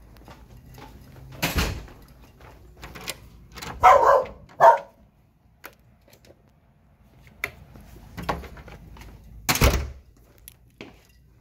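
A dog barks twice, about four seconds in. A door thuds shortly before the barks and again near the end, with small knocks and clicks in between.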